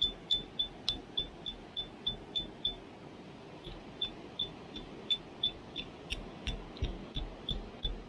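A regular series of sharp, high-pitched ticks, about three a second, each with a short ring, pausing briefly about three seconds in.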